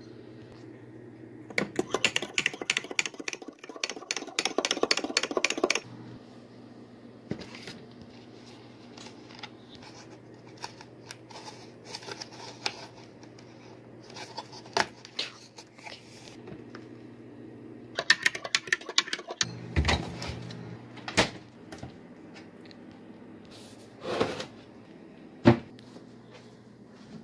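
Kitchen handling sounds of making hot cocoa: a few seconds of fast clicking and scraping from a plastic scoop and a ceramic mug near the start, then scattered clinks and knocks and a low thump, all over a steady low hum.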